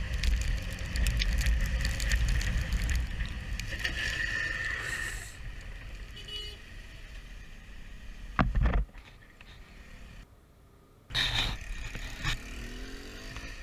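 Motorcycle ride on a rain-wet road heard from the rider's helmet camera: wind on the microphone and road and engine noise. A brief loud burst comes about eight and a half seconds in, then a short near-silent gap, then another loud burst about eleven seconds in.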